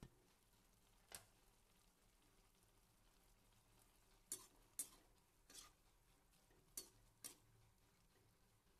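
Slotted metal spatula stirring curry in a steel kadai, making about six faint clicks and scrapes against the pan over near silence.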